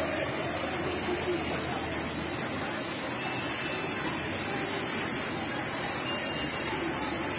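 Fast-flowing muddy floodwater rushing steadily and pouring down a flight of steps.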